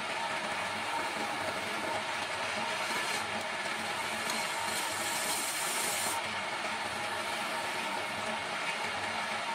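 Electric motor of a wood lathe running steadily while a turning tool scrapes the spinning wood. The hissing cut grows stronger from about three seconds in until about six seconds in.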